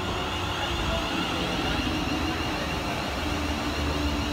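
Class 350 electric multiple unit running into the platform: an even rumble of wheels on rails with a steady high whine.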